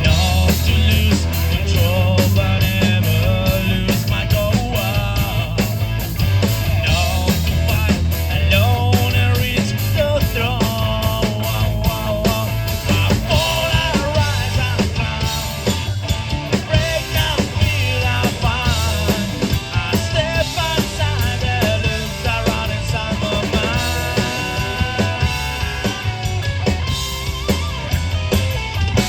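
Rock band playing a song live: a steady drum beat, bass and guitar under a singing voice.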